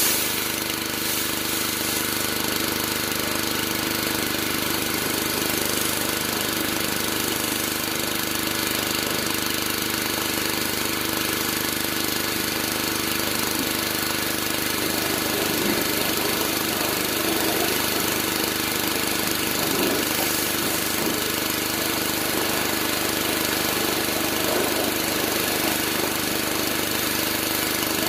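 Pressure washer running steadily, with the constant hiss of its high-pressure spray.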